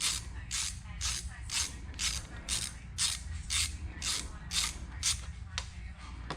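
Hand ratchet wrench clicking in quick, even strokes, about two a second, as a bolt is turned on the motorcycle's engine.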